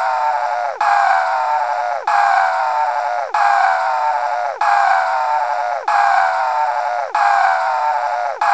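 Cartoon scream sound effect looped: the same short, loud, nasal cry repeats about once every 1.25 seconds, each held for about a second and ending in a sharp drop in pitch.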